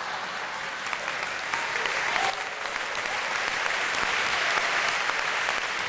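Large theatre audience applauding, a dense, steady clapping.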